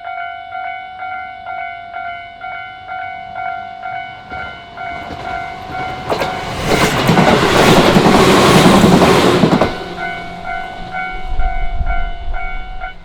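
Japanese level-crossing warning bell clanging steadily at about two strikes a second, while a Tobu Isesaki Line electric train runs over the crossing. The train's noise swells from about five seconds in, is loudest for around three seconds, then fades as the bell carries on.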